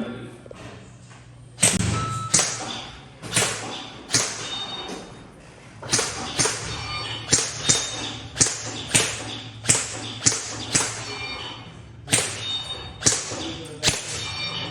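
Airsoft gun fired in single shots, sharp cracks coming in uneven strings, often about two a second, after a short pause at the start.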